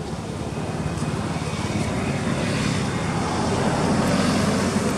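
Engine noise of a passing motor vehicle, steady and growing gradually louder.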